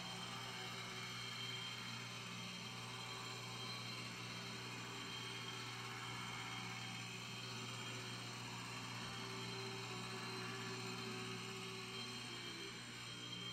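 HO scale brass model steam locomotive's open-frame electric motor and gearing running steadily along the track, a constant whirring hum with a steady high whine.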